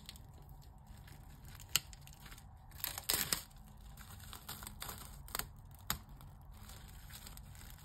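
Plastic cling film being peeled off a heart-shaped resin mold, crinkling and crackling in short, scattered bursts, the loudest about three seconds in.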